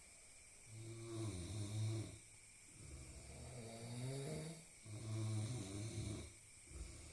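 Snoring: a run of drawn-out, pitched snores, one about every two seconds, four in all.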